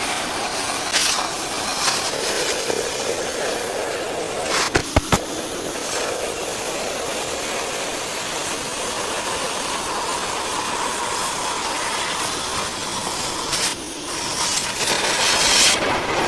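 Cutting torch hissing steadily as it cuts a circle through steel plate, with a few sharp clicks about five seconds in. The hiss stops abruptly at the end.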